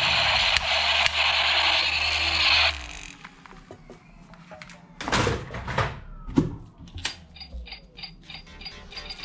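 A battery-powered toy revolver plays its electronic firing sound effect, a loud steady crackling noise that cuts off about two and a half seconds in. Then hard plastic toys knock and clatter a few times as they are handled.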